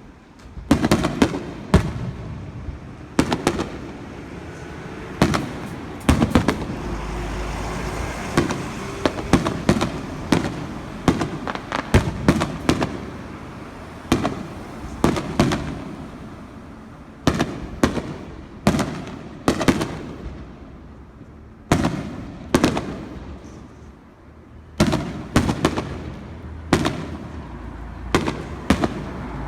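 Aerial fireworks shells bursting at a display: a long run of sharp booms at irregular intervals, some coming in quick clusters, each with an echoing tail.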